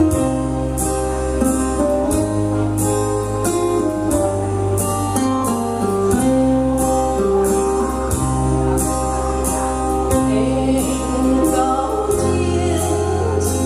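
Pop ballad music with a steady beat, sustained bass notes and a melody line over them.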